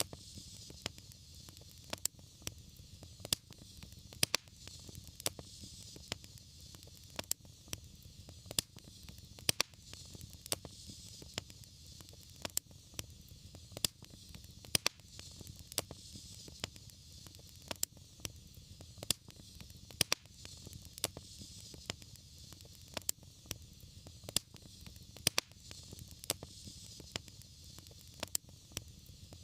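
Wood fire burning in a fireplace: frequent sharp crackles and pops over a steady hiss and low rumble of the flames.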